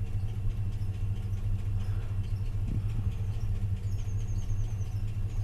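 Car's V8 engine idling steadily with an even low hum; the scan tool has flagged a misfire on cylinder 6, on the passenger-side bank.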